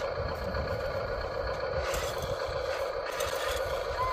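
Small electric gear motors of a radio-controlled construction model running with a steady whine, over an uneven low rattle from its drivetrain.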